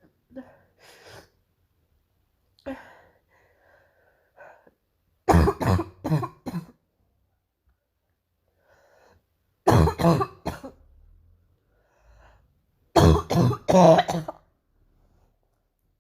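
A girl's harsh, barking cough in three loud fits of four or five coughs each, a few seconds apart. Softer throat-clearing sounds come in the first few seconds.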